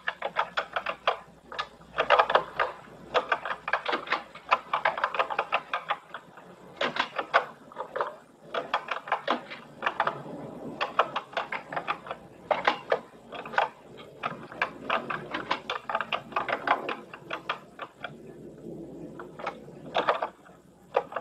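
Keys being typed on a TRS-80 Model I computer keyboard: quick flurries of clicky keystrokes with short pauses between them.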